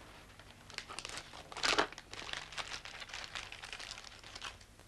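Paper being handled, rustling and crinkling in a run of short rustles, the loudest a little under two seconds in.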